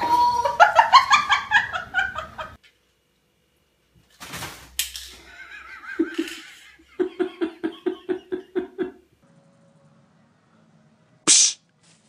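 Bursts of a person's laughter, quick pulsed peals, in two spells separated by a short silence, with a brief sharp noise near the end.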